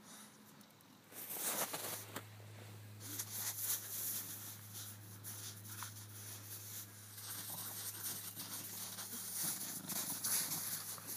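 Bulldog puppies' paws scuffling and crunching through snow in irregular steps, over a low steady hum that starts about two seconds in.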